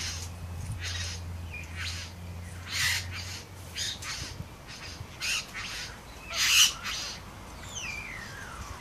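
Male satin bowerbird courting at his bower, giving a string of short, harsh display calls, the loudest about two-thirds of the way through, followed near the end by a long falling whistle.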